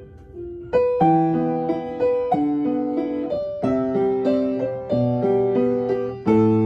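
Piano played by hand: a few single notes, then a melody over chords from about a second in.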